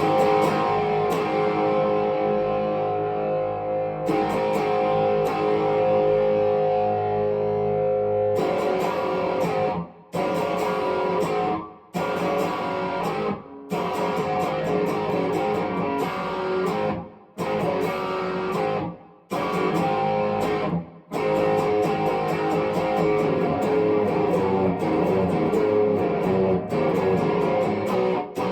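Epiphone 1959 Les Paul Standard electric guitar being played. A chord rings out for about eight seconds, then a run of chords is each cut off sharply every second or two, then the playing goes on without breaks.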